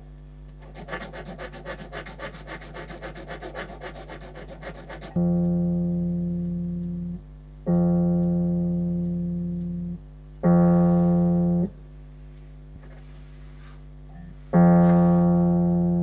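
A metal file rasping in quick strokes across the tip of a vintage Hohner electric keyboard reed for about five seconds. Then the same reed's note is played four times, each note ringing and slowly fading, to check its tuning.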